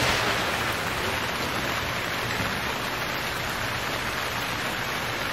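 Steady rain falling on a wet street, an even hiss of drops on the pavement.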